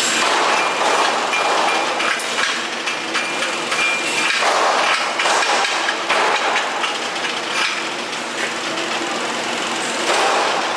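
Metalworking noise: repeated metal knocks and clinks over a steady machine hum.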